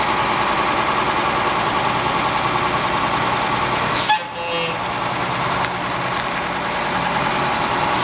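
1983 Peterbilt 348 concrete pump truck's diesel engine running steadily as the truck creeps forward, with one short, sharp hiss of the air brakes about halfway through.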